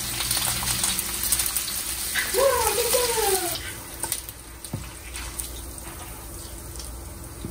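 Meat sizzling on a hot grill plate, a steady hiss that drops away about three and a half seconds in. Partway through, a short high-pitched call rises and falls.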